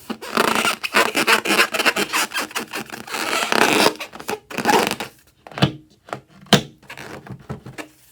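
Slime being squished and mixed by hand, a dense crackling, rasping noise in long bursts, then two sharp snaps and sparser crackles toward the end.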